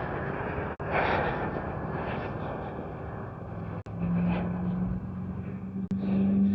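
Propeller hum of a small DJI Neo drone flying close by, much reduced by a DJI lapel mic's noise cancellation, under breezy wind noise. A steady low hum grows stronger about four seconds in, and the sound cuts out briefly a few times.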